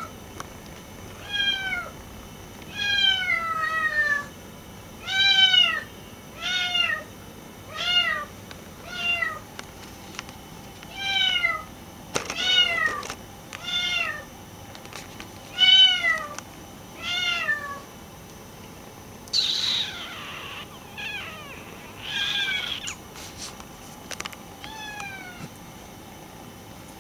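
Maine Coon kitten meowing over and over, about a dozen short high calls that each rise and fall, roughly one a second. Near the end come a few rougher, scratchier cries and one last short meow.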